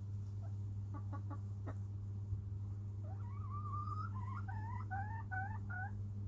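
A domestic chicken calling: a drawn-out rising call, then a run of about five short upward-sliding clucks. A few faint clicks come just after a second in, and a steady low electrical hum runs underneath.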